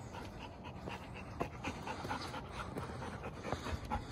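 Golden retriever panting, with a tennis ball held in its mouth, winded from chasing balls.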